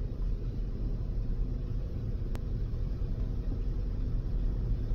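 Vehicle engine idling, heard inside the cab as a steady low rumble, with one faint click about two and a half seconds in.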